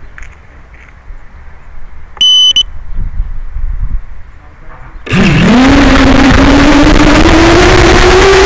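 FPV quadcopter on the ground: a short electronic beep about two seconds in, then about halfway through its brushless motors spin up with a loud whine that keeps rising in pitch as the throttle is raised.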